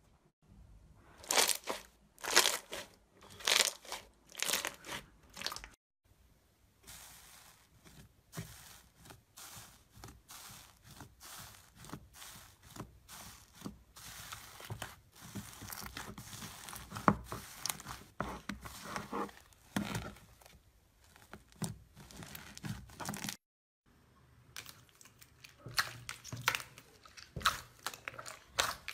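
Hands squeezing and pressing slime. First come loud wet pops of trapped air bubbles. Then a long stretch of fine crackling as fluffy foam slime is pressed, and after a break near the end, squelching pops from glossy slime being kneaded.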